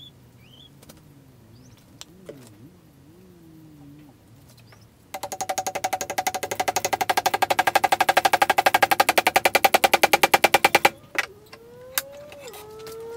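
Handheld power saw running in rapid, even strokes for about six seconds, trimming the protruding wooden wedge on the freshly hafted tomahawk head. It cuts off abruptly and a couple of sharp knocks follow.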